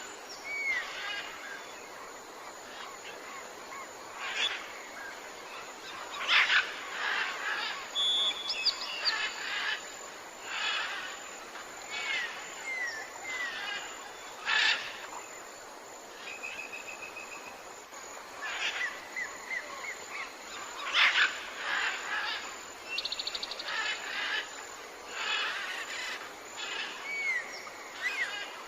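Jungle ambience: many birds calling, with short down-slurred whistles repeated several times, brief trills and a couple of buzzing rattles, over a steady background hiss of insects.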